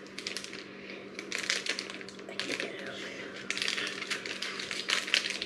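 Irregular dry clicks and crunches from hard pretzel snack sticks, many small sharp sounds in quick, uneven succession.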